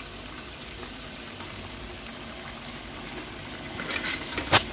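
Breaded nuggets deep-frying in hot oil in a steel wok: a steady bubbling sizzle with scattered crackles. A sharp click sounds about four and a half seconds in.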